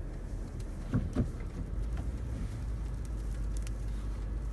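A car driving, a steady low rumble of engine and road noise, with two brief louder sounds about a second in.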